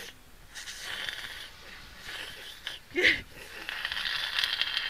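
Sucking an icy cold drink up through a straw: long airy slurping hisses, broken by a short, louder squeak about three seconds in.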